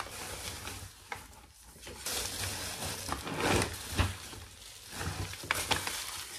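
Plastic bubble wrap rustling and crinkling as it is pulled off a picture frame, with a few sharp clicks.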